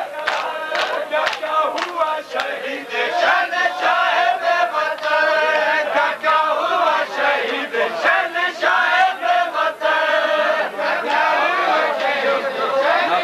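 Crowd of men chanting a mourning lament in unison during matam, with sharp chest-beating slaps, about two a second at the start.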